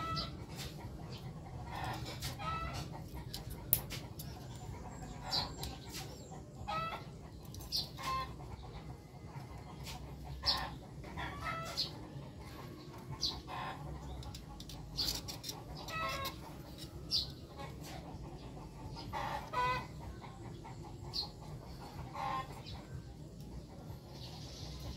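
Chickens clucking on and off, short calls every second or two, with a few sharp clicks over a low steady rumble.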